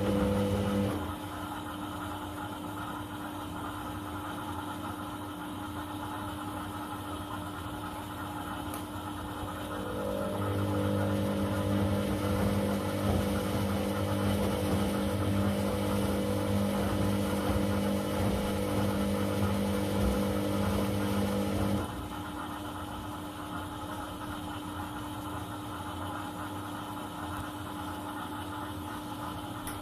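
Candy CS1292D3 front-loading washing machine in its first rinse, the drum tumbling a wet load. The drum motor's hum stops about a second in, runs again from about a third of the way through to about three-quarters through, then stops, leaving quieter pauses between turns.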